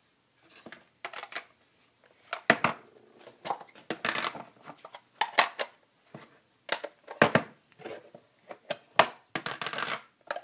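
Plastic lunch boxes being handled and nested one inside another, with irregular knocks and clatters of plastic on plastic and on a wooden tabletop, a few of them sharper, and scraping between them.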